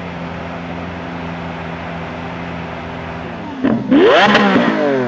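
Lamborghini Aventador's V12 idling steadily, then revved: a quick throttle blip about three and a half seconds in, followed by a loud rev that climbs sharply in pitch and falls back near the end.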